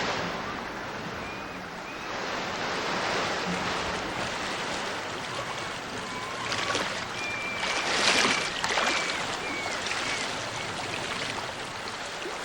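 River water rushing steadily, with a few short, high chirping calls in the middle.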